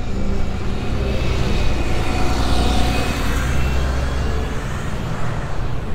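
Double-decker bus engine running close by, a steady low rumble that fades about four and a half seconds in, over general street traffic noise.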